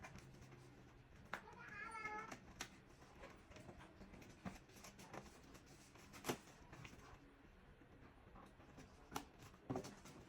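Faint scattered clicks and taps, with one short, high, wavering cry about two seconds in.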